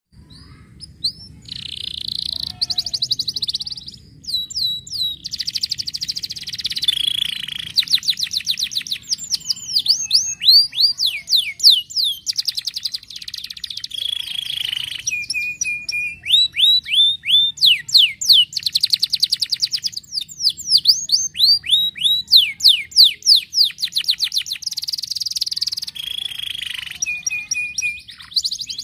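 Yellow domestic canary singing a long, fast song: rapid trills of quick downward-sweeping notes, buzzy rolls and short steady whistles, the phrase changing every second or two.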